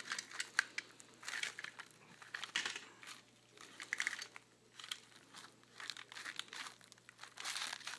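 Packing material crinkling and rustling as items are unwrapped by hand, in irregular bursts of small crackles, a little louder near the end.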